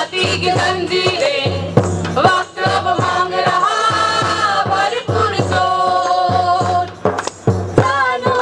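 A group of voices sings a Hindi protest song together, accompanied by a hand-held frame drum (dafli) beaten in a steady rhythm of about two to three strokes a second.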